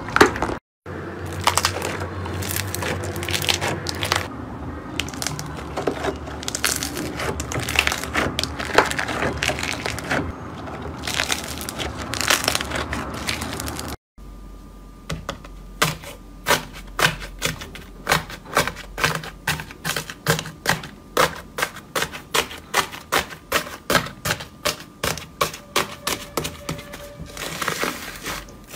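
Hands squishing and kneading slime. First a clear blue slime full of small beads gives a dense, continuous crackling. After a cut about halfway, a thick, creamy pale-yellow slime being pressed gives regular sharp clicking pops, about two a second.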